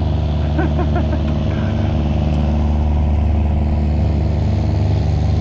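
Towboat's diesel engine running with a steady low drone as it pushes a work barge past.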